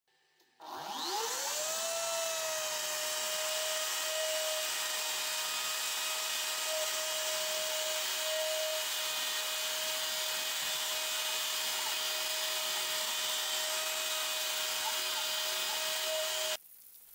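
NymoLabs 710 W trim-router spindle on an NBX-5040 CNC router spinning up with a rising whine that levels off into a steady high whine, with the hiss of a 1/8-inch two-flute end mill cutting MDF. The sound cuts off suddenly near the end.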